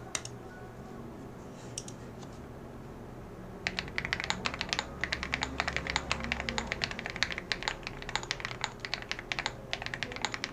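Typing on a CIDOO ABM066 mechanical keyboard with lubed KTT Grapefruit linear switches and screw-in stabilizers, picked up by a headset microphone. A couple of single keystrokes come first, then fast, continuous typing starts a little over a third of the way in.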